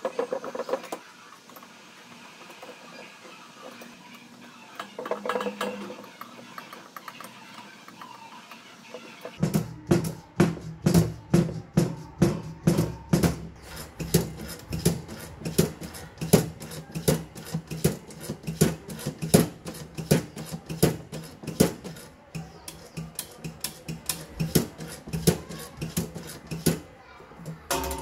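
Background music with a steady drum beat that comes in about a third of the way through. Before that there are only a few faint knocks.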